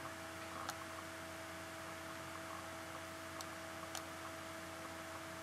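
Faint steady electrical hum and hiss, with a few faint computer mouse clicks, about a second in and twice near the end.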